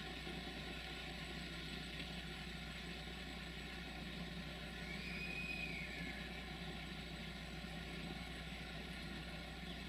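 Freight train rolling slowly through a station at a distance: a steady low rumble and hum, with one brief high squeal that rises and falls about five seconds in.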